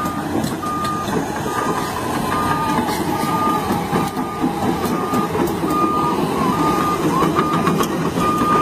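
John Deere 210G excavator travelling on its tracks: its travel alarm beeps steadily, about one beep every 0.7 seconds, over the diesel engine running and the clatter of the steel tracks.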